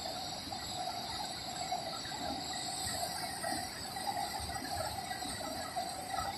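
Steady rush of floodwater pouring through a canal regulator, with a constant high chirring of insects over it.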